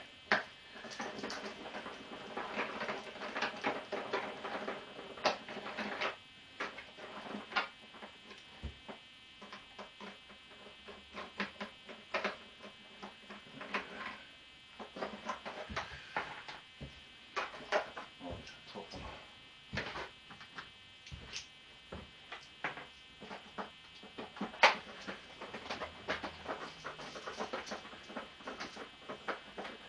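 Irregular clicks, rattles and knocks of screws, tools and plastic fairing panels being handled and worked loose from a motorcycle, with a steady hum in the first six seconds or so.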